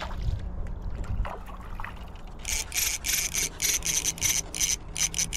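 Spinning reel whirring in short, even bursts, about three a second, starting about two and a half seconds in, while a hooked trout pulls against the line.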